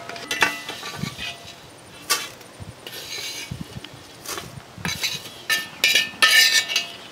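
A steel spoon scraping and clinking against a brass pot and a steel plate as roasted vermicelli is scooped out. Several scattered clinks and short scrapes, busiest near the end, where one rings briefly.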